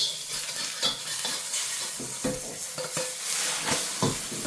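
Egg mixture sizzling steadily as it fries in oil in a pan. A utensil scrapes and knocks against the pan several times as the egg is moved and turned.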